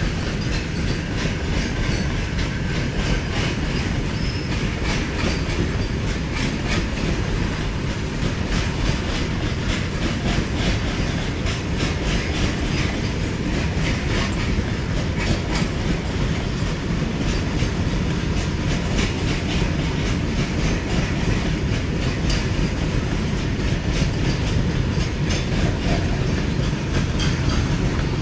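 A long train of empty BCNHL covered freight wagons rolling past at speed. Steady loud running noise with a rapid, continuous clickety-clack of wheels over rail joints.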